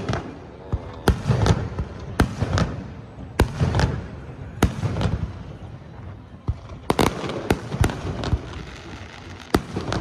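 Aerial fireworks shells bursting: about a dozen sharp bangs at uneven intervals, each trailed by a low rumbling echo, with several in quick succession about seven seconds in.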